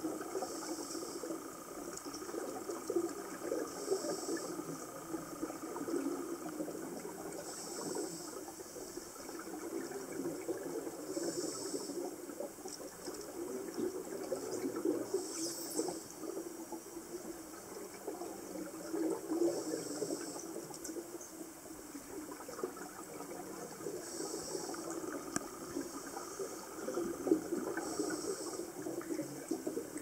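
Scuba breathing heard underwater: a steady crackle of bubbles and water, with a short hiss from a scuba regulator about every four seconds.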